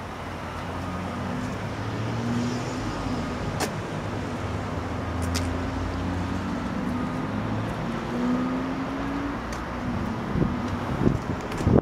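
Motor vehicle engine running steadily with a low, slightly wavering hum, over road traffic noise. A few knocks near the end.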